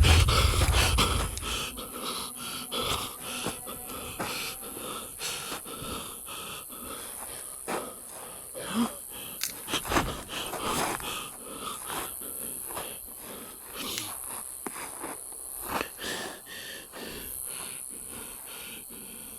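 A person's wheezy breathing close to the microphone, with scattered rustles and clicks throughout, over a steady high drone of night insects. A loud low thump comes right at the start.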